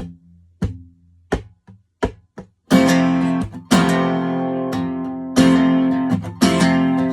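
Acoustic guitar playing a song intro: short muted strokes spaced evenly for the first couple of seconds, then full strummed chords ringing out from about three seconds in.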